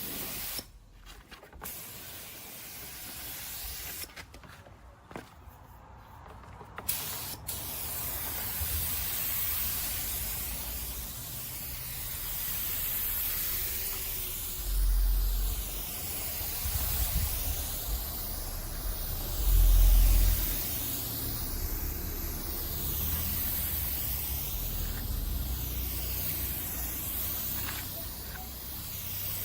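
Compressed-air paint spray gun hissing steadily, the hiss swelling and fading in a regular sweep every two to three seconds. A couple of low thumps come about halfway through.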